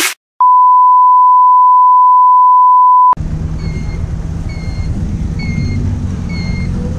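A loud, steady electronic beep tone, one pure pitch held for nearly three seconds, that cuts off abruptly. After it comes a vehicle engine running under wind and road noise, with a short high chirp repeating about every half second.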